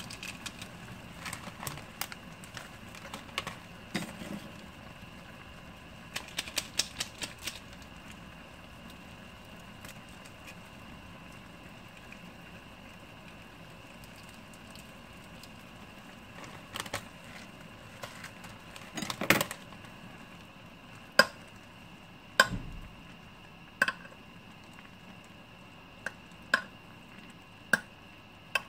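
Small metal utensil stirring instant noodles and seasoning in a bowl, clinking against its sides. Scattered light clicks, with a quick run of them about six seconds in, a busier patch of stirring near two-thirds through, and then single sharp taps every second or so toward the end.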